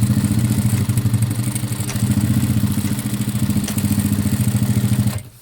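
Jack JK 9100-BH industrial lockstitch sewing machine running at high speed, stitching through a thick stack of heavy fabric layers with a fast, even needle beat. It stops suddenly near the end.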